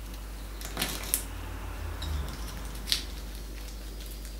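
Small kitchen knife cutting a garlic clove on a wooden cutting board: three short crisp cuts and taps, with a little handling of the clove in between.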